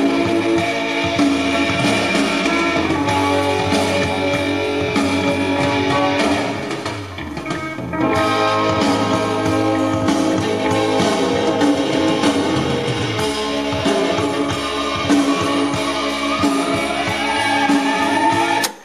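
Music with guitar and drums playing back from a cassette in an MCS 683-3595 stereo cassette deck, with a softer passage partway through. It cuts off abruptly near the end as the Stop key is pressed.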